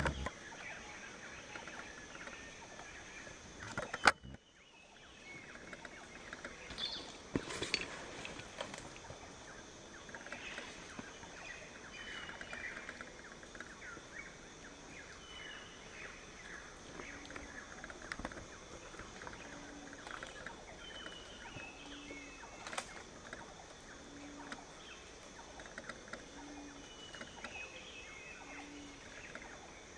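Birds calling and chattering over a steady high insect-like drone, with a low hooting note repeated about every second and a half through the second half. A single sharp click about four seconds in.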